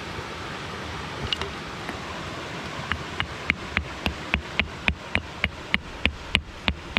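Rock pick hammer tapping on a piece of rock, starting about three seconds in with quick, even, light strikes at about four a second, over a steady background hiss.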